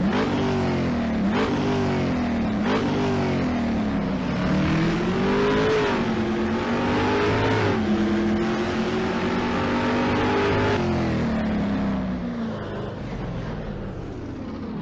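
Car engine accelerating hard, its pitch climbing and dropping three times in quick succession as it shifts up through the gears, then running on more steadily and fading toward the end.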